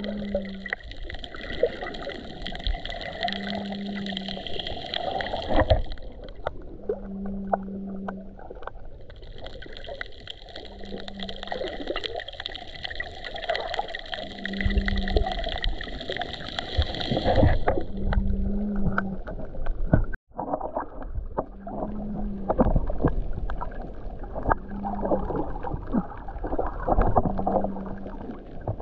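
Muffled underwater sound of water moving around a snorkeler's camera, with small knocks against the housing and a low hum that comes and goes every three to four seconds. A high hiss runs through the first half and stops a little past the middle.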